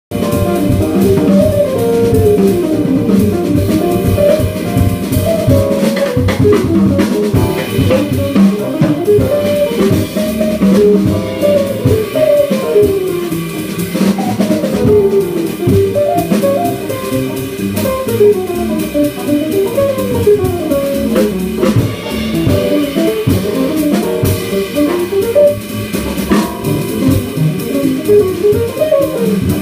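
Live jazz quartet playing: a hollow-body electric guitar runs quick lines of notes up and down over double bass, piano and drum kit.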